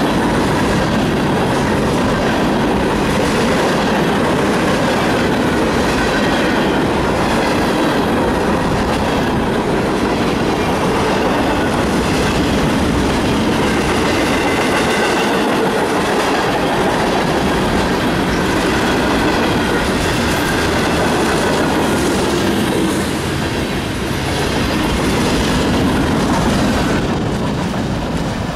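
Union Pacific freight train's cars (centerbeam flatcars, boxcars, tank cars) rolling past close by, the wheels rumbling and clattering steadily on the rails. The sound eases off near the end as the last car goes by.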